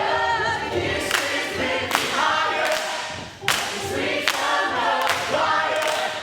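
An ensemble of voices singing together in close harmony, with sharp percussive hits on the beat about every 0.8 seconds.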